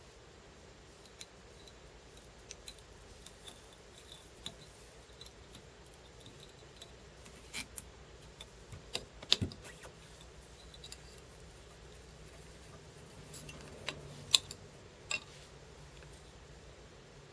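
Quiet handling of fly-tying tools and materials at the vise: scattered light ticks and clicks, with a few sharper snips or clicks, the loudest about nine seconds in and again about fourteen seconds in.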